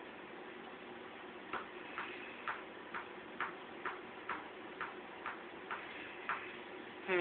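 Regular sharp ticks, about two a second, over a faint steady hum. A falling call begins right at the end.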